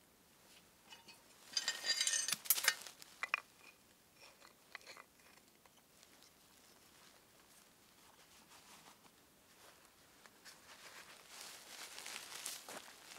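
Crunchy, crackling handling noises about two seconds in, then a small knife scraping and scoring a thin piece of wood on a stump, the scraping building up near the end.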